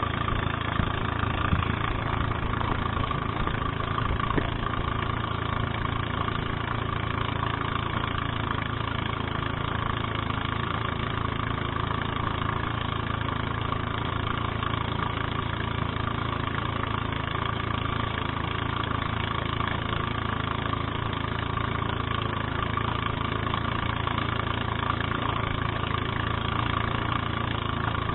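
Engine of a motorized outrigger boat running steadily under way, with water and spray rushing along the hull.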